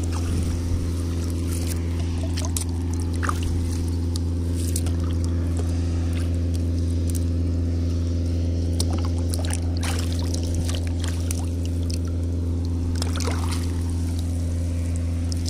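An engine running at a steady speed, a low even hum with no change in pitch. Occasional small clicks and light splashes of water sit over it.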